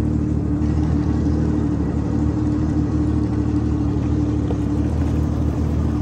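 Yamaha WaveRunner jet ski engine running steadily: a constant low drone with a hum that holds one pitch throughout.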